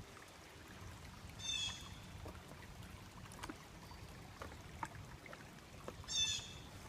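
Shallow creek water trickling steadily, with a few faint ticks and small splashes. A short, high chirping call sounds twice, about a second and a half in and again near the end.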